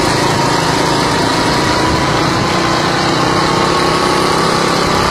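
Small vehicle engines running steadily in a dense drone, with a faint whine that rises slowly.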